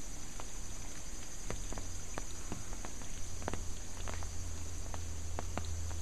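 Water running out of a crack in a concrete retaining wall and spattering: a steady rush with irregular drip-like ticks, several a second. It is groundwater seeping through the wall after heavy typhoon rain.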